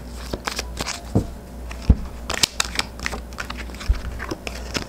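Tarot cards being shuffled and handled: a run of quick papery clicks and rustles from the deck, with two dull thumps, about two seconds and about four seconds in.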